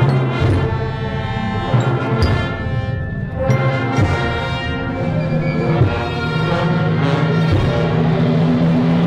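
Procession brass band with drums playing a funeral march, in long held brass notes.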